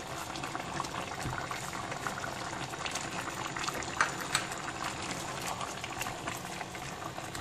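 Coconut-milk red curry simmering in a pan: a steady bubbling crackle, with a couple of light clicks about four seconds in.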